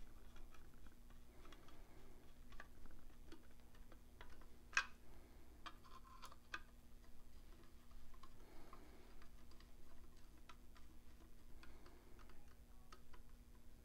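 Faint scattered clicks and light scraping of a flathead screwdriver turning pan head screws into a meter-radio mounting bracket, with one sharper click about five seconds in, over a faint low steady hum.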